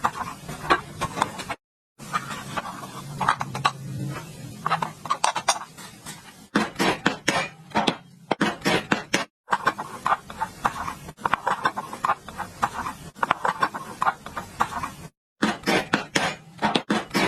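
Metal parts and tools clinking and tapping in quick irregular strokes, broken by a few sudden short gaps of silence.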